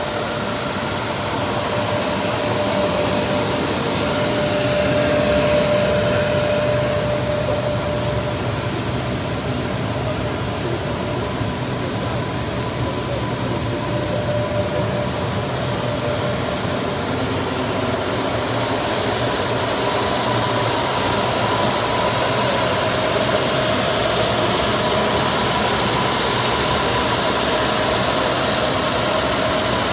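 Industrial web-converting machine running at speed, rolls of paper or film feeding through its rollers, with its trim-extraction blower: a steady mechanical hum with faint whining tones. A high hiss grows louder from about halfway through.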